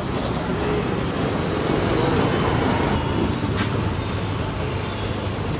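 Road traffic: a steady rumble of passing vehicles, with a brief click about three and a half seconds in.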